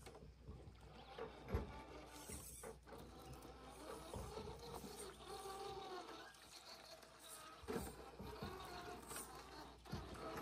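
Scale RC rock crawler's small electric motor and gearbox whining faintly as it climbs over granite, the pitch rising and falling with the throttle, with a few knocks as the tyres and chassis meet the rock.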